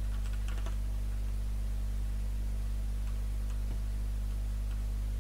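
Steady low electrical mains hum with a faint hiss, and a few faint clicks in the first second and again around three seconds in.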